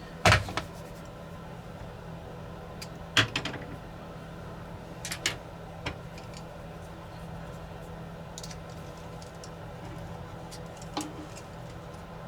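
A few short, sharp clicks and taps of a small precision screwdriver and tools against a drone's plastic body as tiny screws are backed out, over a steady low hum. The loudest click comes just after the start.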